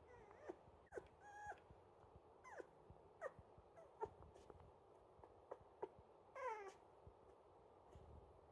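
Baby toy poodle puppy whimpering: a series of faint, short, high-pitched falling whines, about ten in all, with a longer one about six and a half seconds in.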